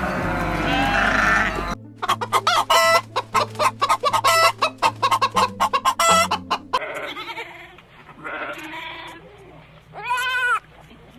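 Animal calls over background music: a fast run of short, repeated pitched calls for about five seconds, then three separate longer calls, the last one rising and falling.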